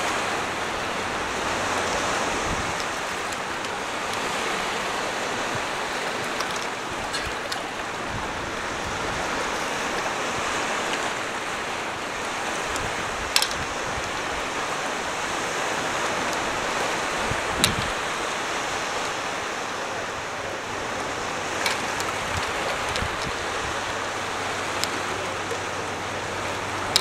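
Sea water washing and breaking around rocks: a steady rushing of small waves, with a few sharp clicks.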